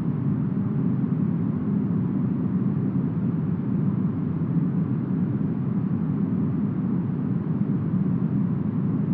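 Steady smoothed brown noise, a deep even rush like wind, unchanging throughout.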